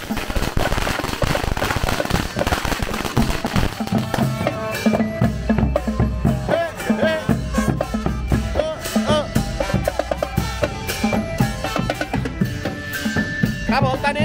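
Thai street brass band (trae wong) playing a lively march-style tune: bass drums and percussion pounding a steady beat, with the horns' melody coming in about four seconds in.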